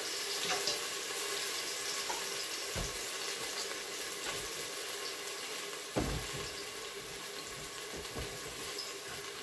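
Onions frying in hot oil, a steady sizzle with faint crackles, and a single dull knock about six seconds in.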